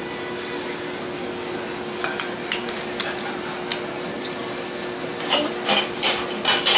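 Metal ice cream scoop clinking and knocking against a ceramic bowl and plastic tub while portioning sweet red bean paste: a few scattered clicks, then a quick run of louder knocks near the end. A steady electrical hum runs underneath.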